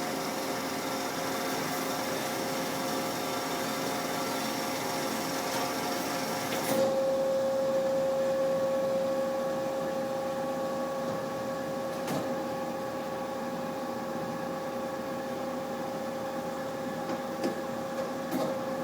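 Marvel tilt-frame vertical band saw running steadily at lowered speed with a steady hum, quiet on its new bearings, bushings and belt. A hiss on top cuts off sharply about seven seconds in, leaving the even drive tone, with a couple of faint clicks later on.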